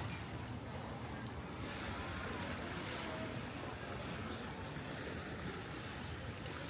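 Steady lakeside wind-and-water noise: waves washing along the lake shore, with a low rumble of wind on the microphone.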